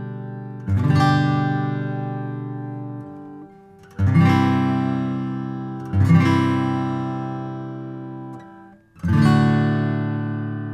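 Taylor 914ce acoustic guitar playing strummed chords, each left to ring and fade. A new chord comes about every two to three seconds, four in all.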